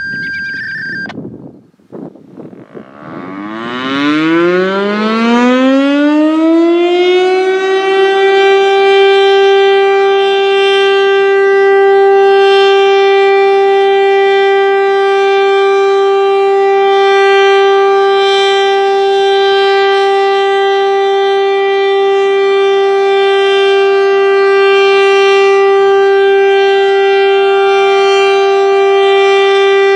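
A short beep, then a Federal Signal STL-10 outdoor warning siren on test: it winds up, rising in pitch over about five seconds, and then holds one steady tone with a slight regular swell.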